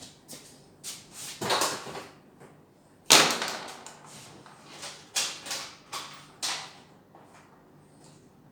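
Handling noises: a string of short scrapes and rustles, with one sharp knock about three seconds in.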